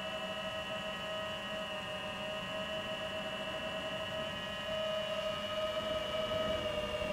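Brushless motors of an iFlight Titan XL5 FPV quadcopter whining steadily as heard from on board, a few high tones over a low hum. About five seconds in, the sound gets louder and the pitch dips slightly as the drone banks into a dive.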